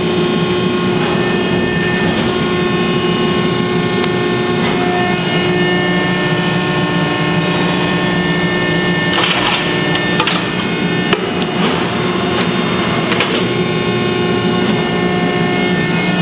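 Harris HRB-1C baler running: its hydraulic drive gives a steady loud hum with several held tones, and a few knocks and clanks come in the second half.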